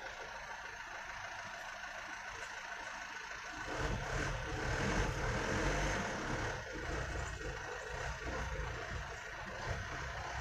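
Steady background noise with a motor vehicle's engine swelling in about four seconds in, loudest a second or two later, then easing off as it passes.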